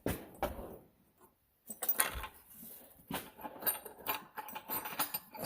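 Small metal items clinking and rattling as someone rummages through them looking for a drill bit. A few knocks come at the start, a short pause follows, then a busier run of clinks.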